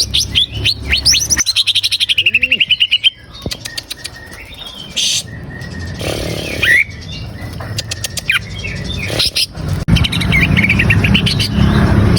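Cucak ijo (greater green leafbird) singing a lure song. It opens with rising whistled sweeps that run into a fast trill of rapidly repeated notes, followed by scattered whistles and a busy burst of chattering phrases near the end.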